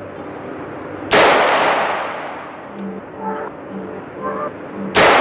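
Two pistol shots about four seconds apart, each a sharp crack followed by a long echo dying away in the enclosed indoor range.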